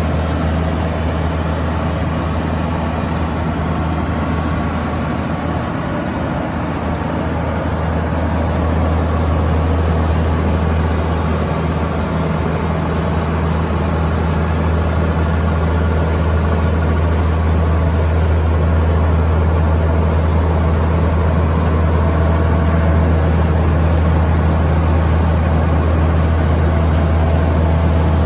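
Case IH 2188 combine harvester's diesel engine running steadily, a deep even drone that grows a little louder after about eight seconds.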